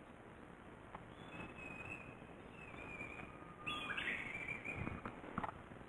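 A songbird singing faint, clear whistled notes: held notes, then a quick stepped phrase falling in pitch about four seconds in. A few soft knocks come near the end.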